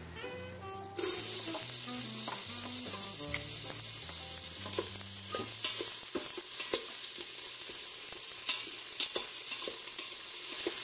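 Chopped onions sizzling in hot olive oil in an Instant Pot on sauté mode. The sizzle starts suddenly about a second in as the onions go into the pot, then carries on steadily, with scattered clicks and scrapes of stirring.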